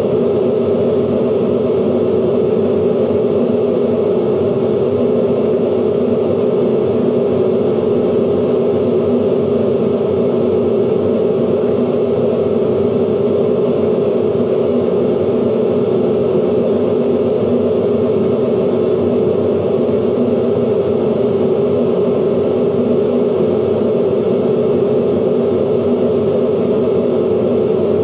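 Dense, steady electronic noise drone from 16mm film magnetic soundtracks, played through the projectors and altered by light sensors on the screen. It holds one loud, even level throughout, with a strong hum in the lower middle of the range.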